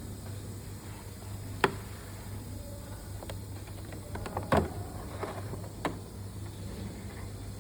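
Laptop parts being handled during disassembly: a few scattered sharp clicks and taps, the loudest a short cluster about halfway through, over a steady low hum.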